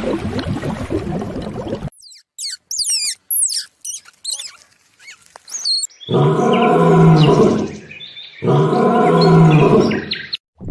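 Animal calls from changing clips: a dense low jumble, then quick high bird chirps, then two long, loud calls from a large animal, each about two seconds, the second after a short pause.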